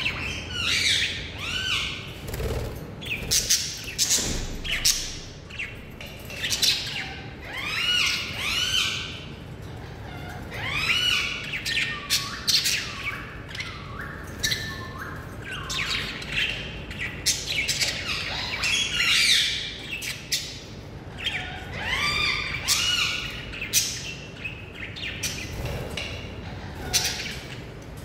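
Caged green ring-necked parakeet calling: clusters of short, arching chirps mixed with sharp squawks, recurring every second or two.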